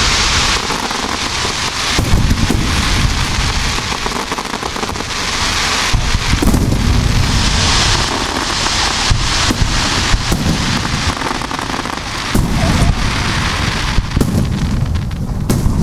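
A rapid barrage of aerial firework shells bursting, with deep overlapping booms and a dense crackle from the bursts that never lets up. Sharp reports stand out about two seconds in, midway, and near the end.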